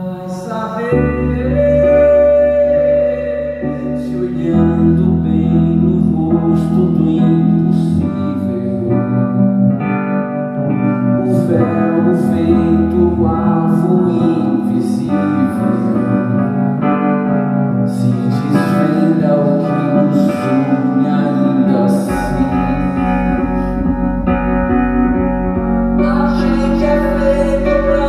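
Live band music: sustained chords with plucked guitar over a steady bass line, and a voice singing in places. The bass drops lower about two-thirds of the way through.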